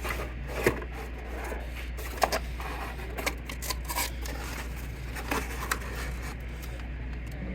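Light clicks, taps and scrapes of hand tools and small metal parts being handled during printer reassembly, a few sharper knocks among them, over a steady low hum.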